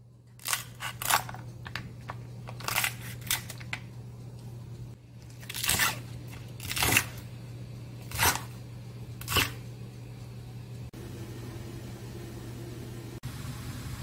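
Kitchen knife cutting a thick green onion on a wooden cutting board: four crisp chops about a second apart, after a run of lighter cuts in the first few seconds.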